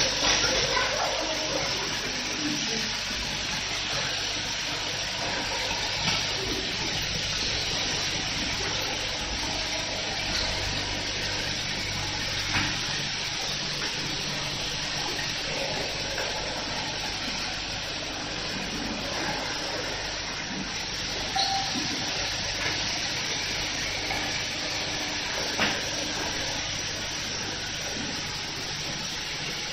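Bottle filling and capping line machinery running: a steady hiss and whir from the machines and conveyor, with a few light clicks.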